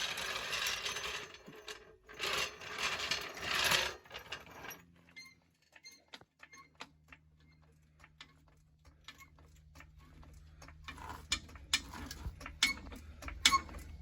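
A jack being worked to lift a heavy truck: two loud rustling stretches at first, then a steady low hum under quick mechanical clicks that come faster and louder toward the end.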